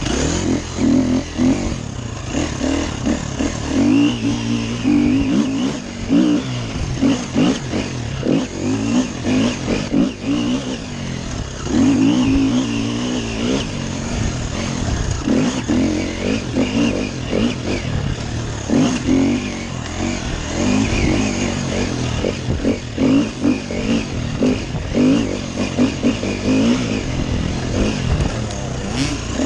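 Off-road dirt bike engine revving up and falling back over and over as it is ridden hard along a rough trail, with knocks and clatter from the bike over the bumps.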